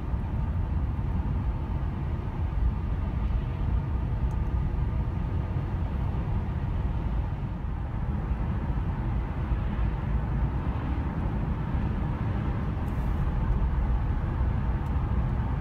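Mercedes-Benz C124 E320 coupe heard from inside the cabin while driving: a steady low rumble of its M104 straight-six engine mixed with tyre and road noise.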